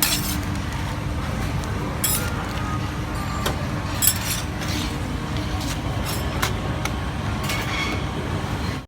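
Steady rumble of street traffic, with scattered short metallic clinks and scrapes of cooking utensils at the crepe stall.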